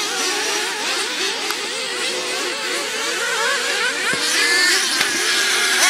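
Several small nitro engines of RC buggies revving, their high-pitched whine rising and falling as the cars race, with a sharper rev climbing about four seconds in.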